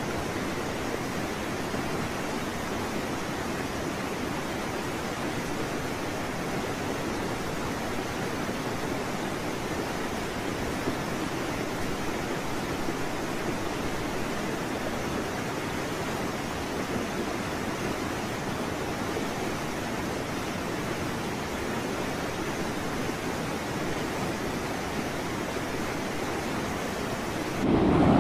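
Steady rushing noise of water churning around a small boat as it sinks. Just before the end a much louder rush of sound starts abruptly.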